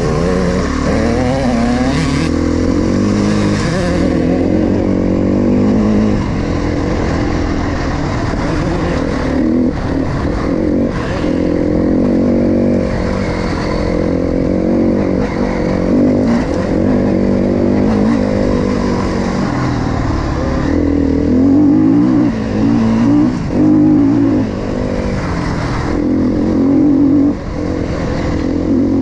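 KTM 350 XC-F four-stroke single-cylinder dirt bike engine under way, its pitch rising and falling with the throttle and gear changes, with a short drop near the end.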